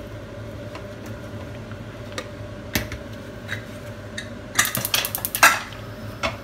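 Metal cookware clinking and clattering on a gas stovetop: a few scattered clinks, then a quick rattling run of clanks about four and a half seconds in as the pots and pans are shifted, the loudest near five and a half seconds.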